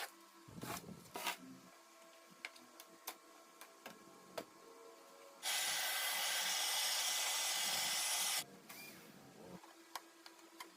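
Small clicks and knocks of handling, then a steady hiss that starts suddenly about halfway in, lasts about three seconds and cuts off.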